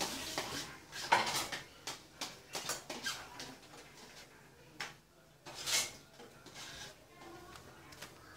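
Scattered knocks and clatter of kitchenware being handled off-screen, the loudest about a second in.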